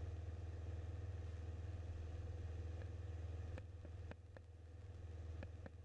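Steady low drone of the Grumman Tiger's four-cylinder Lycoming engine and propeller in flight, with a few sharp clicks in the second half.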